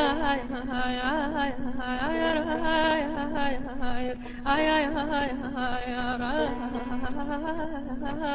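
Azerbaijani folk song from a 1975 Melodiya vinyl record: a heavily ornamented melodic line with quick pitch turns over a steady drone, between sung verses.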